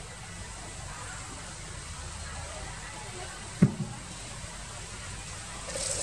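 Steady outdoor background hiss, with one sharp thump a little past halfway and a fainter second knock right after it.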